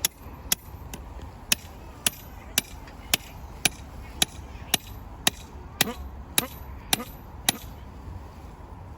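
Steady hammer blows on an iron rod, about two a second with a short metallic ring, driving it into the ground to make a hole for the scarecrow's support stick; the blows stop about a second and a half before the end.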